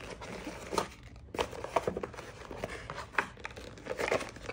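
Cardboard packaging being handled: a box's lid and card insert lifted and moved, with rustling and several light knocks and scrapes.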